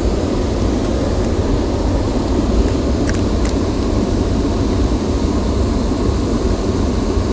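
Steady, loud low rumbling noise with no clear pitch, with two faint clicks a little past three seconds in.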